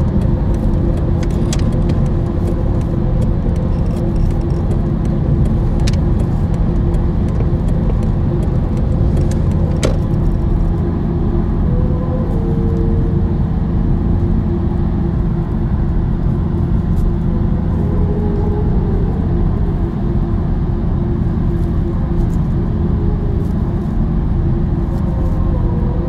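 Film soundtrack of a steady low rumble, like distant traffic, with a few held tones and scattered sharp clicks over it.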